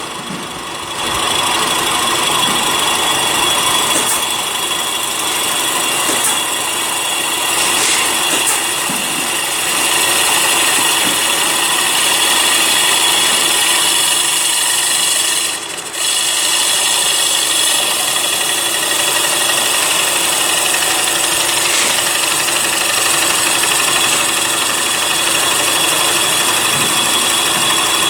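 CNC wood lathe cutting a wooden plate: the machine runs steadily with a constant whine over the hiss of the cutter on the spinning wood, dropping briefly about sixteen seconds in.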